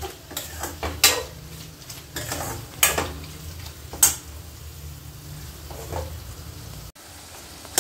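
Steel spoon stirring and scraping mutton pieces in a stainless steel pan, with several sharp clinks of spoon on metal, over a soft sizzle of the meat frying in oil.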